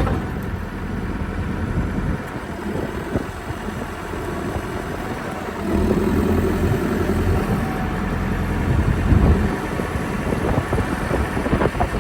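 CAT 420E backhoe loader's diesel engine running steadily, getting louder for a few seconds about halfway through.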